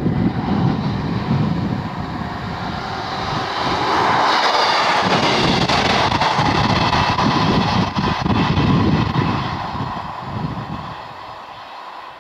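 Class 158 diesel multiple unit passing close. A low engine rumble gives way about four seconds in to a louder rush of wheels on rail with a steady whine, which fades over the last two seconds.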